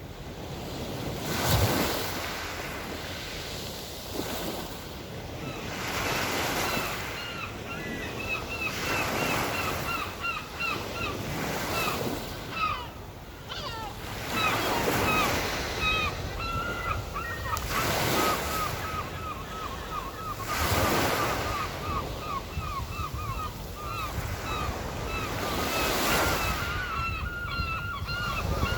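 Black Sea waves washing onto the shore, a swell of surf every two to three seconds. From about six seconds in, gulls call in a fast, steady run of short repeated cries.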